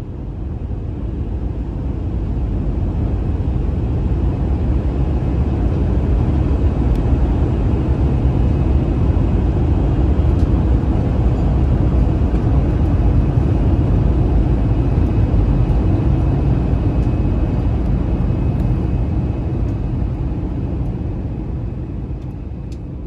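Jet airliner cabin noise on approach: the engines and the rushing air make a steady low roar, with a faint steady whine high above it. It fades in at the start and fades out near the end.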